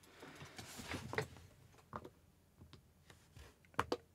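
Rustling handling noise on the phone that is recording, as it is picked up and moved, with a few light clicks and knocks. The loudest clicks come about a second in and a pair near the end.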